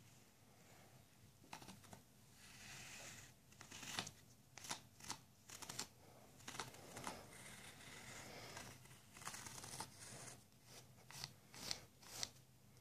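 A rolled-up paper tube scraped and rubbed back and forth across a rug, with soft rustling swishes and several light taps.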